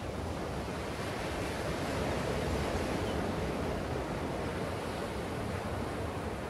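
Ocean surf breaking on a sandy beach: a steady rushing wash of waves that swells slightly a couple of seconds in.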